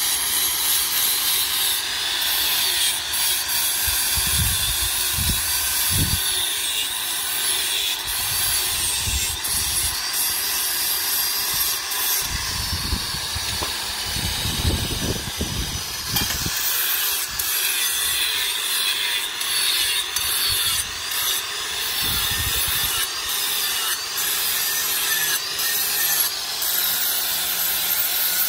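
Electric angle grinder with an abrasive disc grinding a forged steel cleaver blade: a steady, high, gritty grinding of disc on steel.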